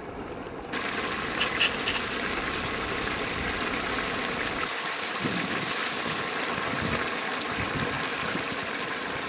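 A large pot of thick tomato-and-cauliflower curry bubbling at a boil over a wood fire. The steady, hissing bubbling grows louder about a second in.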